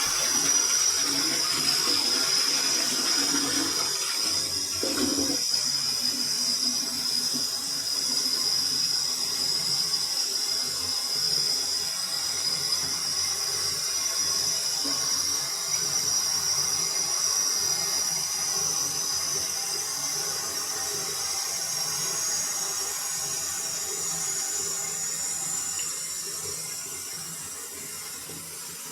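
Toilet refilling after a flush: water hissing steadily through the tank's fill valve, with the bowl's gurgle in the first five or six seconds. The hiss grows a little quieter near the end.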